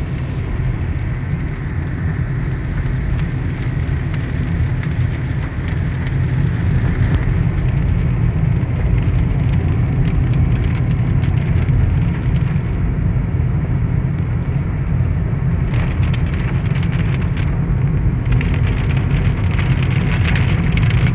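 Car cabin sound while driving: steady engine and road rumble, with light rain ticking on the windshield and roof.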